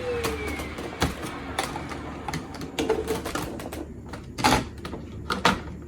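Miele S183 PowerHouse upright vacuum's motor winding down after being switched off, a falling whine fading over the first couple of seconds. Then scattered clicks and knocks follow, the loudest about four and a half seconds in.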